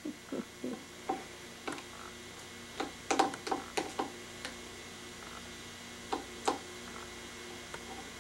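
Plastic spoon tapping and clicking against a small plastic cup as a baby scoops food: irregular light clicks, bunched together about three seconds in, with a couple more later.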